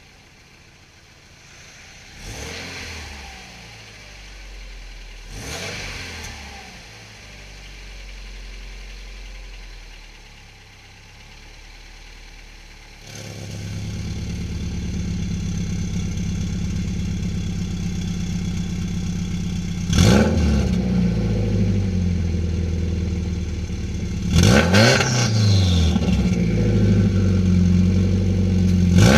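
A heavily modified 2009 Subaru Forester's turbocharged flat-four engine idles quietly with two light blips of the throttle. About halfway through, the exhaust suddenly turns much louder and deeper as the 3-inch electric exhaust cutout opens, and several sharp revs follow.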